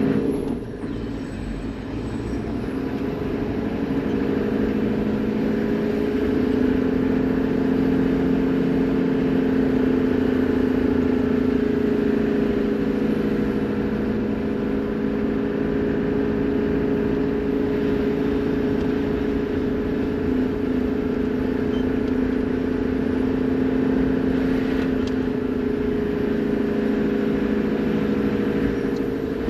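Toyota Land Cruiser HZJ78 Troopy's 4.2-litre straight-six diesel running steadily while driving, getting louder over the first few seconds and then holding an even note.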